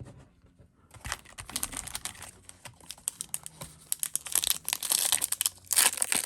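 Plastic trading-card pack wrapper being crinkled and torn open by hand: a rapid crackle that starts about a second in and gets louder near the end.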